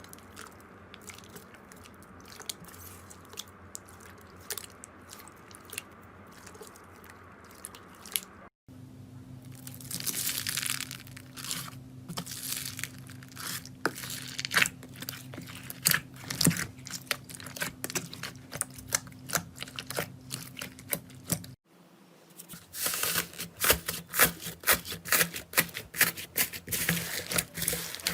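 Slime being squeezed and poked by hand, giving a dense run of sharp crackling clicks and pops. The sound breaks off briefly twice, about a third of the way in and again near the end, and the clicking is loudest and busiest in the last part.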